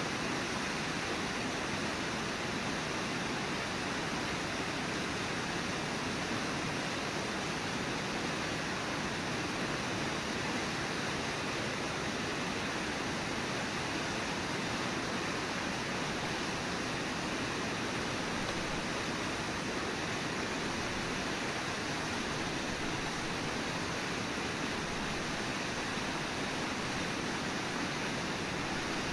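A low, wide river waterfall rushing steadily, an even wash of white-water noise with no breaks.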